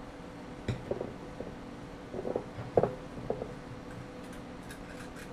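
A few light knocks and clicks of the solder spool and soldering iron being handled and set down on a wooden workbench, over a steady low hum. The loudest knock comes a little under three seconds in.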